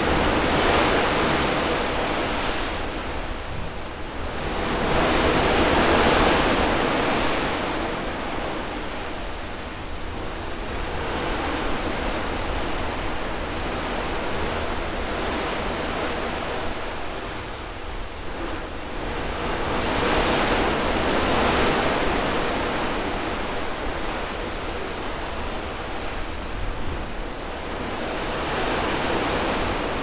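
Seawater rushing and splashing past a cruise ship under way at sea: a steady wash that swells and fades in long surges every several seconds.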